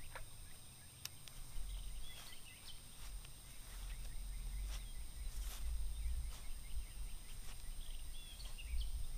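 Outdoor ambience: an uneven low rumble of wind on the microphone, with a few short bird chirps about two seconds in and again near the end.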